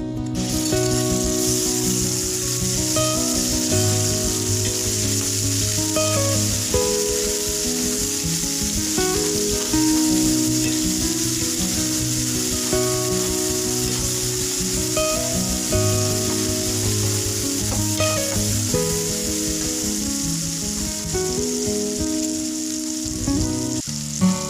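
Food frying in hot oil in a pan, sizzling steadily, with background music playing over it.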